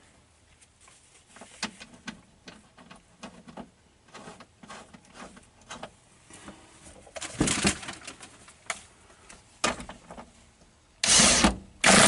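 Light clicks and rattles from the steel seat belt anchor and bolt being handled. Near the end a cordless drill runs in two short loud bursts, driving the belt's upper anchor bolt into the B-pillar.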